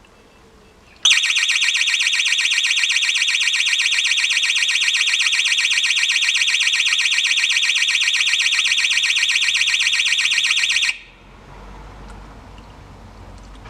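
Pyronix Deltabell external intruder-alarm siren sounding in full alarm: a loud, fast-warbling electronic siren that starts about a second in and cuts off suddenly about ten seconds later.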